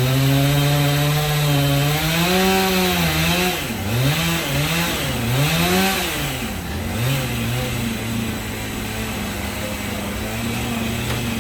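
Gas chainsaw on a home-built chainsaw mill, running while milling a walnut log. Its engine speed rises about two seconds in and swings up and down between about four and seven seconds in, then settles to a lower, steadier note.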